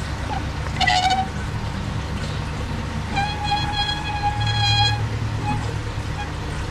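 Two horn honks, a short one about a second in and a longer steady one of nearly two seconds around the middle, over the steady hum and water trickle of an aquarium filter.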